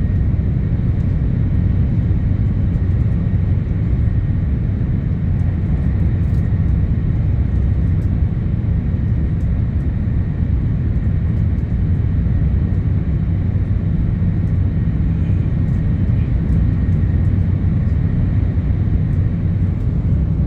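Interior running noise of an E2 series Shinkansen car: a steady low rumble of the train on the track, with a faint high steady tone above it.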